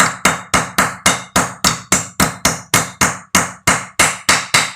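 Rapid, evenly spaced hammer blows, about four to five a second, driving a ball bearing into its bore in a Hero Pleasure Plus scooter's gearbox casing: metal striking metal with a short ring after each blow.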